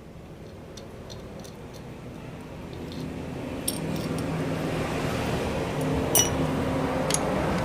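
Light metallic clinks of engine parts and tools being handled during engine disassembly: faint ticks early on, then three sharper ringing clinks in the second half. Under them a steady background hum grows louder.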